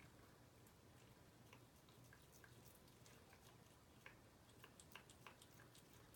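Near silence, with faint, scattered wet clicks of a cat chewing raw chicken slowly; a few come close together about four to five seconds in.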